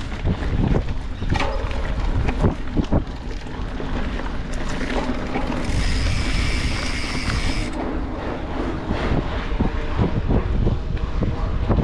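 Mountain bike riding over a dirt trail: wind buffeting the microphone over a steady rumble of tyres, with frequent rattles and knocks from the bike over bumps. About halfway through, a high steady whine runs for about two seconds.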